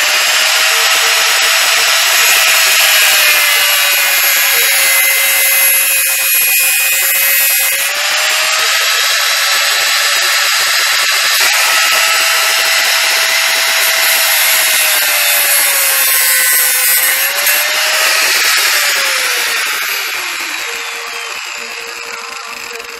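Electric angle grinder cutting into a bicycle frame bar: a loud, steady high whine with a harsh grinding hiss, its pitch sagging a few times as the disc bites. About nineteen seconds in it is switched off and the whine winds down, falling in pitch and fading.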